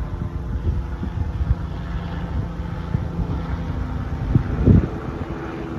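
Wind buffeting the microphone in irregular gusts, loudest about three-quarters of the way through, over a low steady hum.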